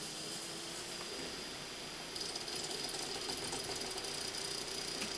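Sony MDP-533D laserdisc player spinning up a disc to load it: a steady motor whine that rises a little in pitch, joined about two seconds in by a fast mechanical rattle. The noise comes from a player just refitted with a new KHS-130A optical pickup and belt, and the owner finds it a bit noisy as it gets going.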